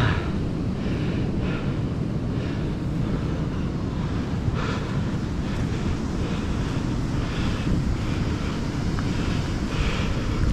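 Wind buffeting the microphone in a steady rumble, with surf breaking in the background.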